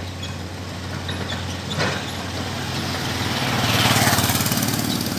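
Excavator's diesel engine running steadily, with a short knock near two seconds in. It grows louder and pulses for about a second just after three and a half seconds in.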